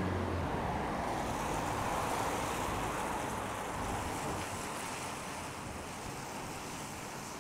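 Traffic on a wet road: a vehicle's engine hum fades out in the first half second, then the tyre hiss of a passing car swells about two seconds in and slowly dies away.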